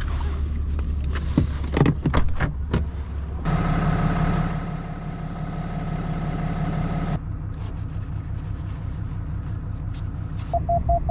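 Truck engine running with a steady low hum, with a few sharp clicks and knocks in the first three seconds and a steady whine for about four seconds in the middle. Near the end a quick run of short electronic beeps starts.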